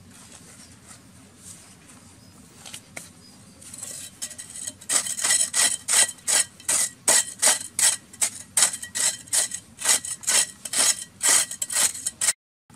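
A metal hand blade scraping and chopping into dry, crumbly soil in quick repeated strokes, about three a second, each a short rasping scrape. The strokes begin about five seconds in and stop abruptly near the end.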